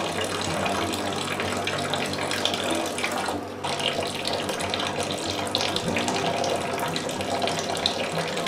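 Corn-mash liquid running in a steady thin stream from the ball valve of a cooler mash tun and splashing into the liquid already in a plastic fermentation bucket, as the mash is drained over.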